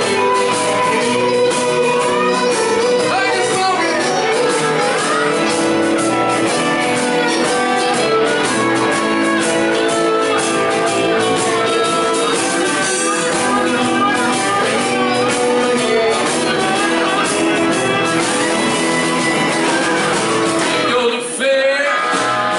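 Live rock band playing: electric and acoustic guitars, Hammond SK2 keyboard, bass guitar and drums, with a singer. The music dips briefly near the end.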